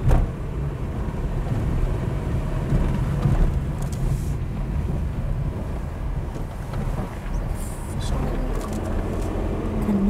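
Car driving slowly on a dirt road, heard from inside the cabin: a steady low rumble of engine and tyres.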